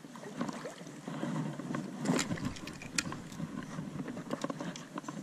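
Stream water splashing and sloshing while a hooked brook trout is fought on a spinning rod, with two sharp knocks about two and three seconds in.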